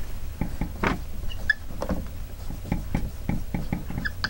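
Dry-erase marker squeaking and tapping on a whiteboard as numbers and letters are written, a quick run of short squeaks and taps, with a steady low hum underneath.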